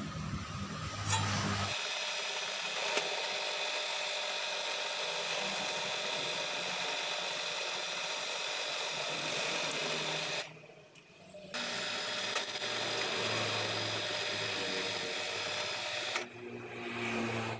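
Bench drill press running with a steady motor whine while a steel brake-caliper bracket is drilled. It starts about two seconds in, drops away for about a second past the middle, then runs again.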